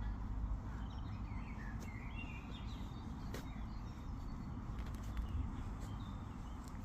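Birds chirping in short, faint calls over a steady low rumble of outdoor noise, with one sharp click about three and a half seconds in.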